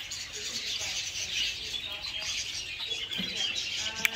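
Many small aviary birds chirping and chattering continuously, a dense mass of overlapping short calls, with a couple of sharp clicks right at the end.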